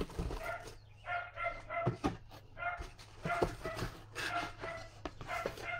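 A small dog yapping over and over in quick runs of two or three high-pitched barks. There is a single sharp knock about two seconds in.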